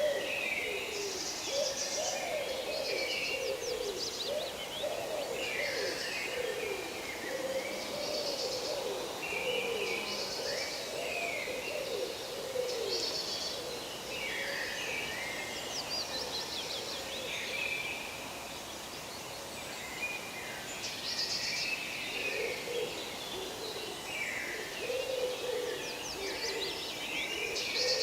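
Forest bird chorus: many birds chirping and trilling high up, over lower wavering calls that drop out in the middle and come back near the end.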